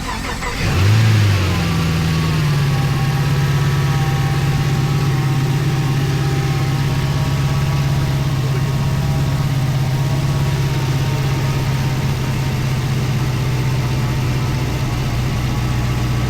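A Chevrolet LS3 6.2-litre V8 in a 2010 Camaro catches about a second in, flares in revs and settles into a steady idle.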